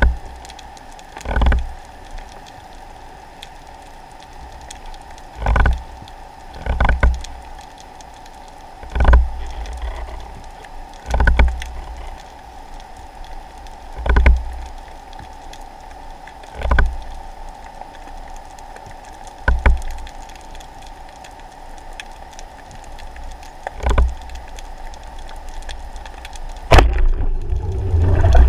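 Underwater sound picked up through a camera housing on a speargun: a steady hum, with a low thud every two to three seconds. Near the end comes a sharp knock, followed by loud rushing water noise.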